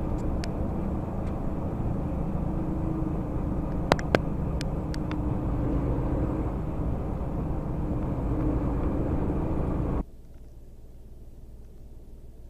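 Steady engine and road drone heard from inside a lorry's cab at motorway speed, with two sharp clicks about four seconds in. About ten seconds in it cuts off abruptly to a much quieter low hum.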